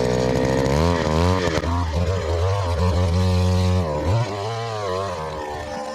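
Small gas engine of a powered post hole auger running at high throttle while it bores into soil, its pitch sagging and recovering several times as the auger bites under load. About four seconds in it drops to a lower, quieter speed.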